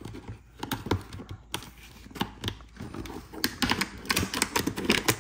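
Scissors clicking and snipping at a small plastic packaging bag, with the plastic being handled. It makes a run of sharp, irregular clicks that come faster in the second half.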